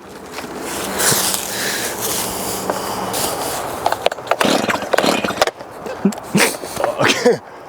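Continuous scraping, rustling noise for about four seconds, then broken scraping and short vocal sounds.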